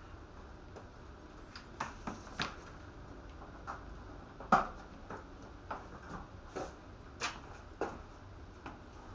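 Scattered light clicks and knocks, about a dozen, irregularly spaced, the loudest a sharp knock about four and a half seconds in.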